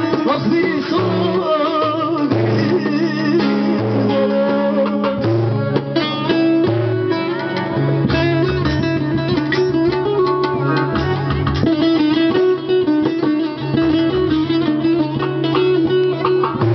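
Turkish folk song (türkü) played on plucked string instruments, a busy melody over a bass line that steps between a few low notes.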